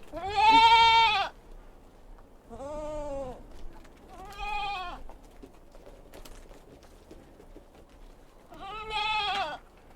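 Goats bleating: four separate calls, the first and loudest about a second long, then three more spread through the rest of the time.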